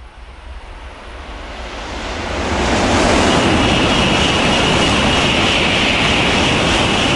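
Shinkansen bullet train passing through the station at full speed without stopping: a rushing noise that swells over the first two and a half seconds as the train nears, then holds loud and steady with a high hiss while the cars stream past.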